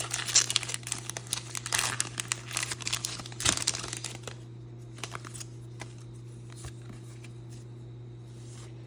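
Foil booster pack wrapper crinkling and tearing open for about four seconds, then only a few faint ticks of handling, over a steady low hum.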